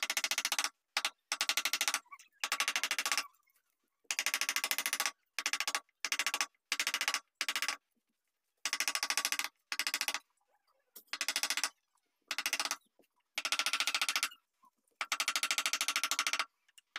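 Wooden mallet striking a carving chisel into a wooden panel in quick runs of taps, each run lasting up to about a second and a half, with short pauses between.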